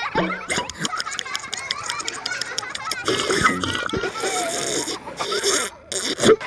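Comic eating noises: rapid munching, gobbling and slurping, with grunt-like vocal sounds.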